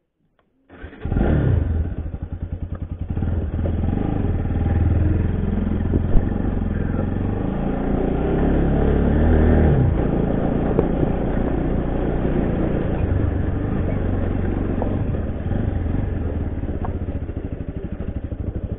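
An engine running, with a fast, even firing beat under a low rumble. It starts abruptly about a second in.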